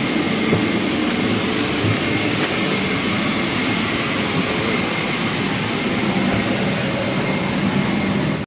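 Steady hiss and hum of a Boeing 777-300ER's cabin ventilation, with a faint high steady whine running through it.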